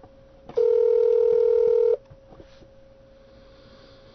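Telephone ringback tone heard down the line: one steady ring of about a second and a half starting about half a second in, then the silent gap of the ring cadence, over a faint steady line hum and a few soft clicks. It is the call ringing at the other end, not yet answered.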